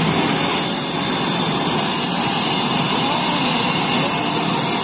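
Jet engines of taxiing jet aircraft running steadily: a high whine over a constant rush of engine noise.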